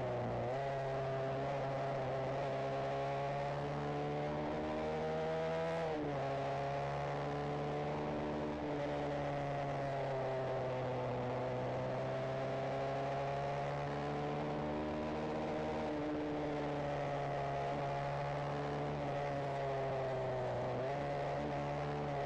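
Benelli TNT 125's single-cylinder 125 cc four-stroke engine and exhaust heard from onboard while riding, the engine note rising and falling with the throttle through the bends. The pitch drops suddenly about six seconds in and again near the end, then climbs back.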